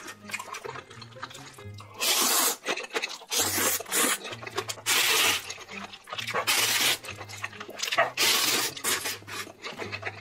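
A person loudly slurping ramen noodles, about five long slurps in a row, each under a second, over background music with a low bass line.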